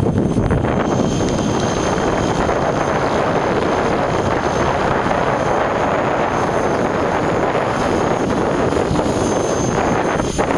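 Radio-controlled model helicopter in flight: steady rotor and motor noise with a faint high whine above it.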